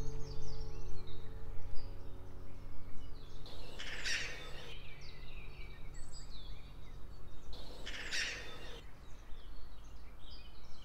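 Small birds chirping and twittering, with two louder, harsh calls about four seconds apart, each lasting about a second.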